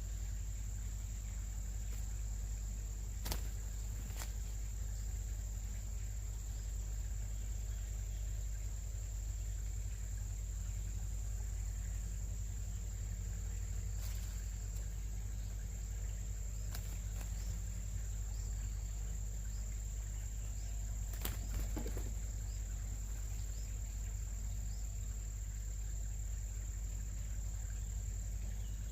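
Steady high-pitched insect drone, like crickets, over a constant low rumble, with a few faint clicks scattered through.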